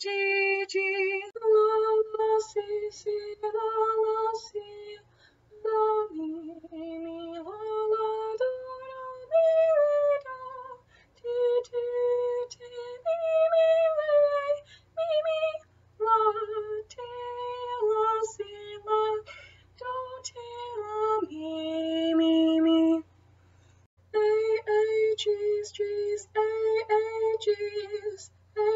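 A woman singing a solfège sight-singing melody alone, one held note at a time, the pitch moving up and down mostly by step, with short breaths between phrases and a longer pause near the end.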